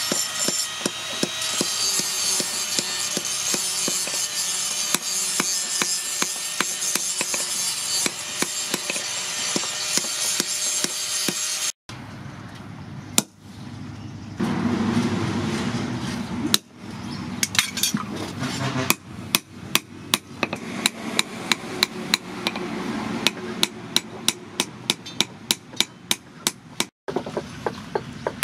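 Hand hammer striking red-hot chainsaw-bar steel on a steel post anvil, forging a knife blade: fast, dense blows with the anvil ringing. After a break the strikes come sparser over a low rumble, then settle into a steady run of blows at about two to three a second.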